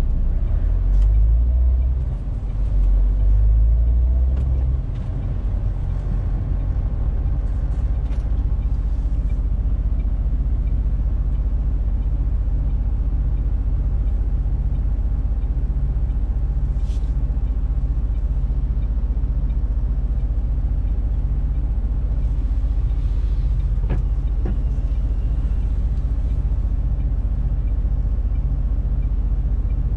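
MAN TGX 470 truck's straight-six diesel engine heard from inside the cab: running under load for the first few seconds as the truck rolls, then idling steadily with the truck stopped. A short hiss comes about halfway through.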